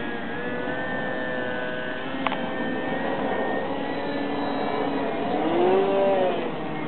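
Radio-controlled foam Gee Bee model plane in flight: its motor and propeller give a steady whine that swells and bends up and back down in pitch about five and a half seconds in. A single sharp click about two seconds in.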